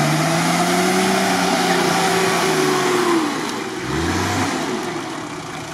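Off-road 4x4 engine revving hard under load while pulling through deep mud on a tow cable, with a steady rushing noise over it; the revs fall away about three seconds in and rise again briefly a second later.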